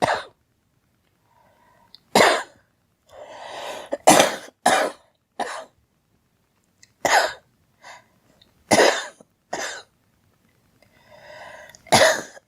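A girl coughing repeatedly: about eight short, sharp coughs, some single and some in quick runs of two or three, with fainter breaths drawn in before a couple of them.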